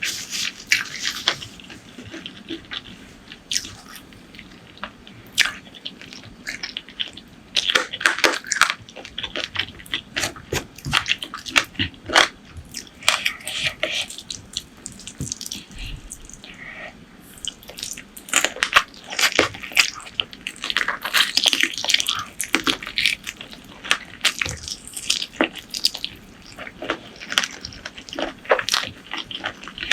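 Close-miked eating sounds from a meal of spicy chicken feet and chicken curry: wet chewing, lip smacks and sharp mouth clicks in an irregular, dense run.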